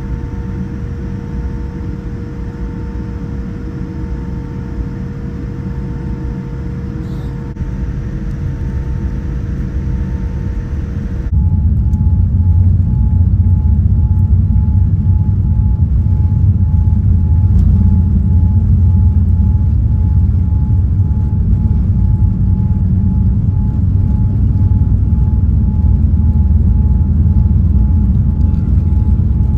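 Steady cabin rumble aboard a Boeing 787 Dreamliner, with a faint steady hum over it. About eleven seconds in it jumps suddenly to a louder, deeper rumble, which then holds steady.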